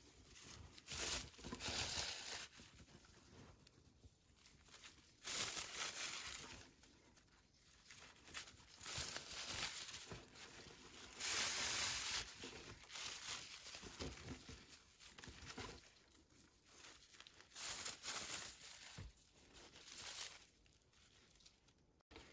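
Crocheted raffia yarn crinkling and rustling in irregular bursts as a bodkin and a cord are worked up and down through the stitches and pulled through.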